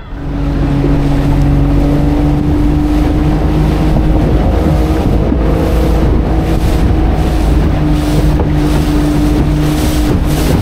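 Motorboat engine running steadily at cruising speed, with wind rushing over the microphone and water noise from the hull.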